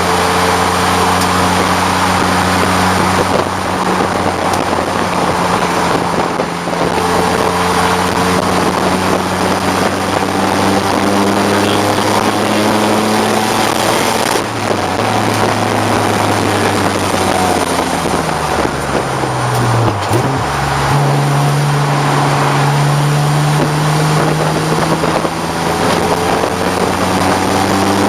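1989 BMW 535i's straight-six engine running hard at race pace, its note rising and falling with speed. About twenty seconds in, the pitch falls away sharply, then climbs steadily again.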